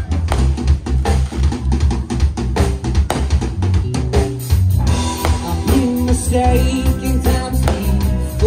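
Live rock band playing loud: a drum kit and bass keep a steady beat under electric guitar. About five seconds in, a held, bending melody line comes in over it.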